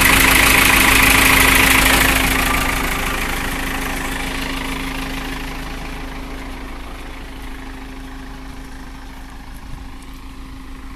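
Case 770 backhoe loader's diesel engine running with a steady hum. It is loud at first and grows gradually quieter over the first several seconds.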